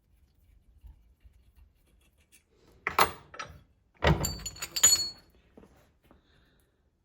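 Knocks and clinks of hard parts being handled and set down: two knocks about three seconds in, then a quick cluster of clinks a second later, some ringing briefly with a metallic tone.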